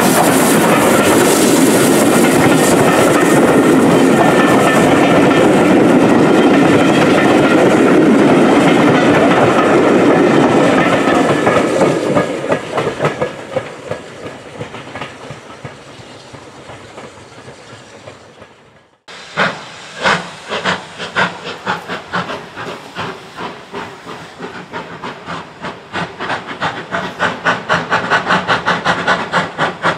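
LMS Fowler Class 3F 'Jinty' 0-6-0T steam tank engine No. 47406 passing close with its train, loud with steam hiss and rail noise, then fading as the coaches draw away. After a sudden cut, another steam locomotive works hard, its exhaust beats at about two a second, quickening and getting louder near the end.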